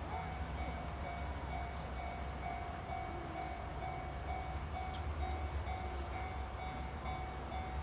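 Japanese railway level crossing's electronic warning bell ringing steadily at about two strikes a second, over a low rumble.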